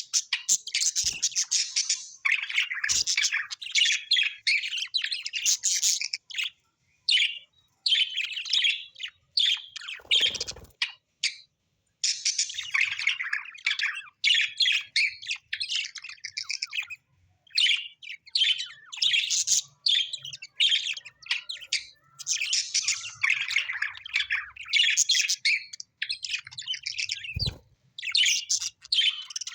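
Parrots chirping and chattering: rapid runs of high-pitched chirps and squawks, broken by short pauses.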